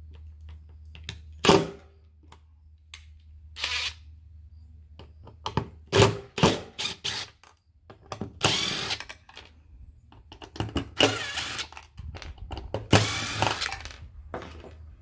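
DeWalt cordless driver backing screws out of the automatic chicken door's housing. It runs in three bursts of about a second each in the second half, with a few sharp clicks and knocks of handling before them.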